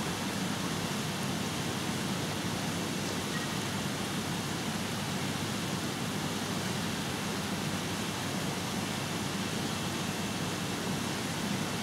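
Steady, even hiss of a hushed indoor diving-pool hall, with no distinct sounds standing out.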